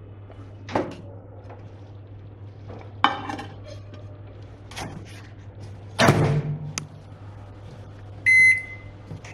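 IFB microwave oven being loaded and started: a few clicks and knocks as the door is opened and a plate is set on the turntable, then the door shuts with a thump about six seconds in. A short keypad beep follows as the timer is set, all over a steady low hum.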